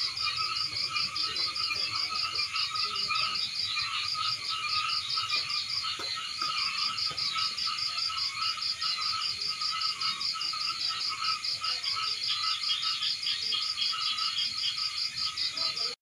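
A chorus of frogs calling in a rice field: many overlapping croaks and chirps over a steady, fast-pulsing high trill.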